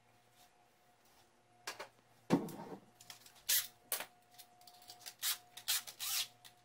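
Tool-handling noises: a knock about two seconds in, then scattered clicks and short scraping rustles as a spirit level comes off the wall and a cordless drill is picked up and handled. The drill's motor does not run.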